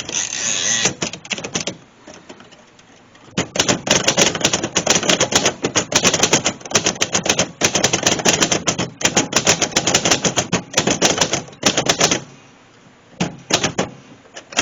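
1955 Royal Senior Companion manual portable typewriter being typed on: a fast run of sharp keystroke clacks as the type bars strike the platen, lasting about eight seconds. A short scraping sound comes first, and a few scattered keystrokes near the end.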